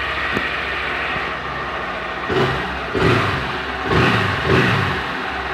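Honda CG 160 Fan's single-cylinder four-stroke engine idling steadily, then revved in four short throttle blips in the second half. The owner hears none of the excessive engine noise other owners report.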